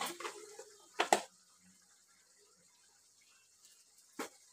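Two sharp knocks of a utensil against a metal cooking pan about a second in, and another near the end, with near quiet between.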